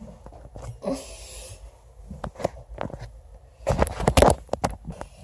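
Handling noise from a phone being moved about: scattered knocks and rubs, a short hiss about a second in, and a loud cluster of knocks about four seconds in.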